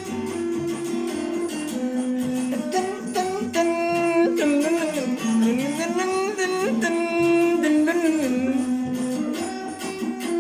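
Music: a plucked string instrument playing a melody of held, gliding notes, as part of a Sudanese song.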